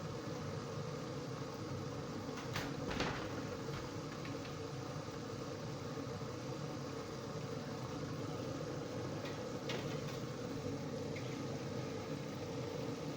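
Batter-coated chicken pieces deep-frying in hot oil, a steady sizzle with a couple of light clicks about three seconds in and again near ten seconds. The chicken is in its last stage of frying, already turning golden.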